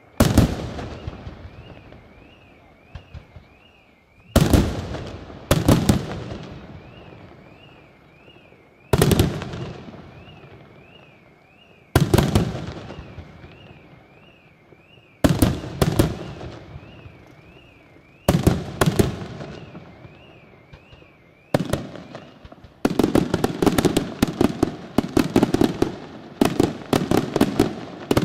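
Aerial firework shells bursting one after another, about ten loud bangs a few seconds apart, each trailing off in a rolling echo. About twenty-three seconds in, a fast, dense run of many smaller reports begins.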